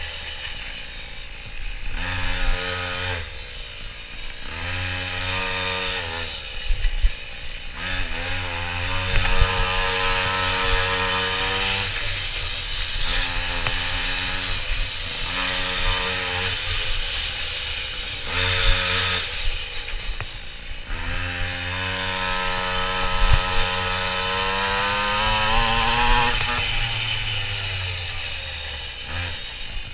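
Minimoto's small two-stroke engine at full throttle, its high-pitched buzz climbing in pitch and then dropping off sharply, over and over, as the rider accelerates and backs off around the course.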